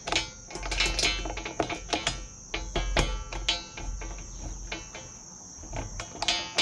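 Socket ratchet clicking in quick runs as a small bolt is snugged into a spring nut inside a metal strut channel, with light metal clinks between the runs.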